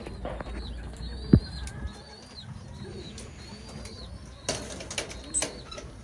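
Pigeons in a loft flapping their wings and cooing, with faint high chirps repeating throughout. A single sharp knock comes about a second and a half in, and a short clatter of clicks near the end.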